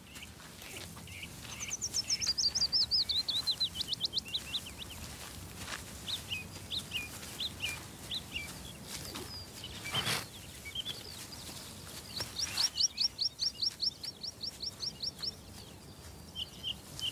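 Songbirds singing: a fast trill of repeated high notes that falls in pitch about two seconds in, scattered short chirps, and a second, level trill about twelve seconds in.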